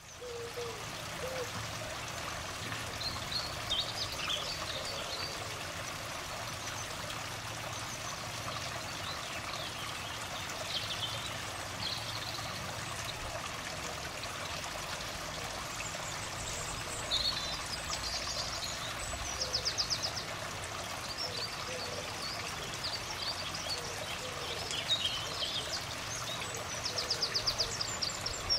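Small birds chirping in short scattered calls over a steady rushing noise like a stream. Two quick rattling runs of rapid notes come about two-thirds of the way through and again near the end.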